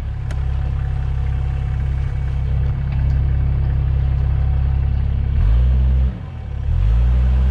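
Toyota Land Cruiser HZJ73's 1HZ inline-six diesel engine running at low revs as the truck crawls a muddy trail, then revved twice near the end, the pitch rising and dropping back each time.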